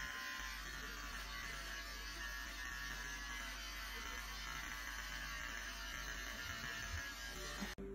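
Cordless electric hair clippers running with a steady hum as they trim short, tightly curled hair. The sound cuts off abruptly just before the end.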